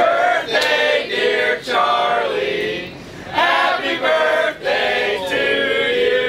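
A group of voices singing together in phrases, with a short pause about halfway through.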